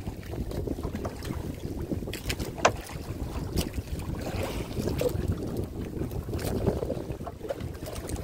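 Wind buffeting the microphone in an uneven rumble, with scattered short sharp knocks.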